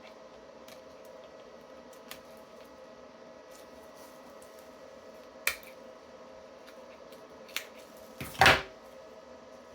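Scissors snipping excess cured resin off a resin flower's edges: a few sharp isolated clicks, and a louder half-second snip or rustle near the end, over a faint steady room hum.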